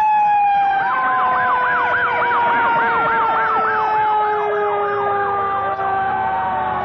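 Several fire truck sirens sounding together as the trucks pass. Long wails fall slowly in pitch, and from about a second in a fast yelp warbles up and down about four times a second before fading out.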